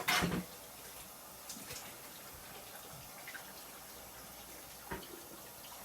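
A sharp clunk as the removed microwave door is set down, followed by a faint steady hiss with a few light clicks and taps.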